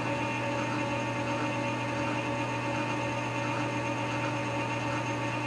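Cisco metal lathe running with its high-speed steel boring bar taking a slow-feed cut in a steel drive sprocket's bore, an interrupted cut broken by the keyway. A steady machine hum with constant gear and motor tones.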